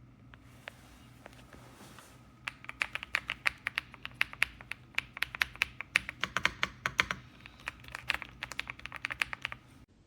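Typing on an EPOMAKER Ajazz AK820 Pro gasket-mounted mechanical keyboard: a few single key clicks, then a fast run of keystrokes for several seconds with a short pause partway through.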